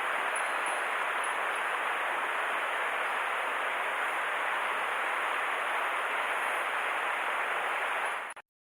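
Mountain stream water rushing steadily, cutting off abruptly a little before the end.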